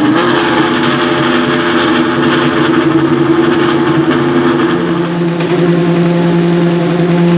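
Dallara GP2 race car's V8 engine running steadily during warm-up, holding a constant speed with a steady tone. About five seconds in the note settles lower.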